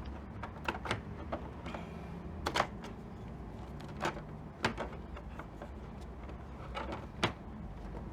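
Scattered sharp clicks and taps of hard plastic being handled: a welding helmet's thin replacement lens cover screen being worked at and pushed into its frame, with a low steady hum underneath.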